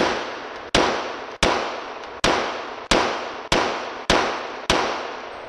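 Handgun fired eight times at a steady pace, about one shot every two-thirds of a second. Each sharp report rings on in the echo of an indoor firing range.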